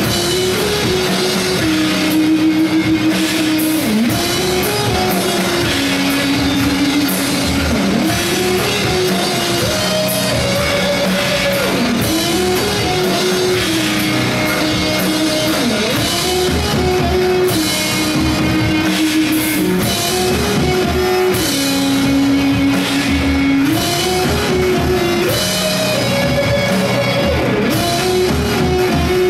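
A rock band playing live and loud: an electric guitar plays a riff of held, bending notes over a steadily played drum kit, with no vocals.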